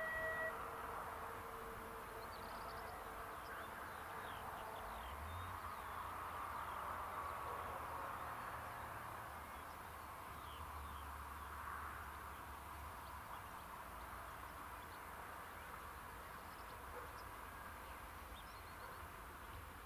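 Quiet countryside ambience: scattered short bird chirps over a steady faint hiss, with a low rumble at times.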